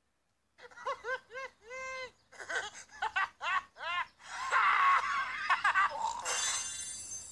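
A cartoon storm-cloud character giggling in a run of short, pitched rising-and-falling laughs that get quicker. About four and a half seconds in the laughter swells into a louder, noisier burst, followed by a high, sparkling shimmer.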